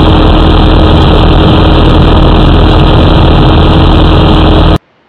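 J-3 Kitten ultralight's engine and propeller running steadily in flight, loud and constant as heard from a camera mounted under the wing. The sound cuts off suddenly near the end.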